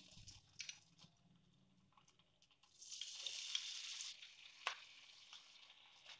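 Cornflour-coated paneer pieces sizzling faintly as they go into hot oil in a frying pan. The sizzle grows louder for about a second some three seconds in as more pieces are tipped in, and there is one light click a little later.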